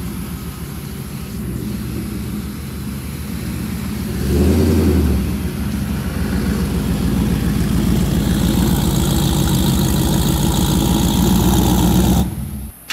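Built 5.4-litre V8 of a Ford F-150 SVT Lightning with a 2.9-litre Whipple supercharger, running loud as the truck pulls forward at low speed, with a brief rev about four seconds in. The sound drops out suddenly near the end.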